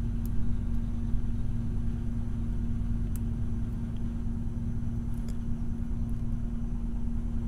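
Steady low hum with one constant tone throughout. Over it, a few faint ticks from a lock pick working the wafers of a brass wafer-lock mortise cylinder held under tension.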